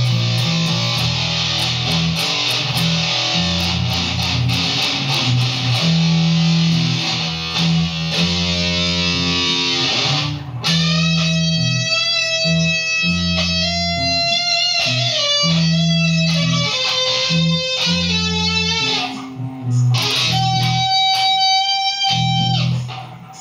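Electric guitar playing over low notes underneath: a dense, hazy strummed passage for about the first ten seconds, then clear single notes that ring out one after another. The playing drops away briefly just before the end.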